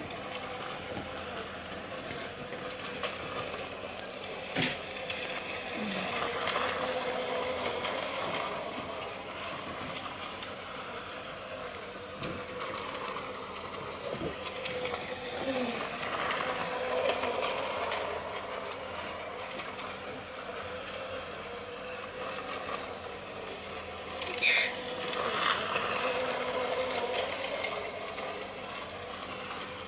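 Battery-powered toy train modelled on a KAI diesel locomotive running around its plastic track: the steady whir of its small electric motor, with scattered clicks and a brief louder sound about 25 seconds in.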